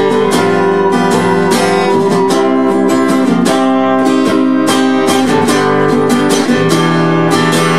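Acoustic guitar strummed in a steady rhythm, an instrumental stretch of a song with no singing, changing chord about six and a half seconds in.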